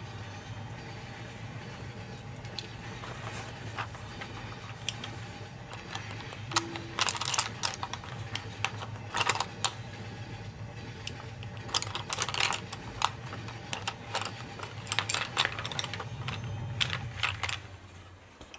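Wooden coloured pencils, Faber-Castell Polychromos, clicking and rattling against each other and their cardboard box as they are pulled out and sorted by hand. The clicks come in quick clusters from about a third of the way in. Underneath is a steady low train rumble, which drops away near the end.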